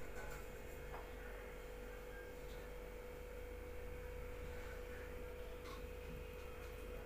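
Steady low electrical hum with a single steady higher tone over faint background noise: room tone with no speech.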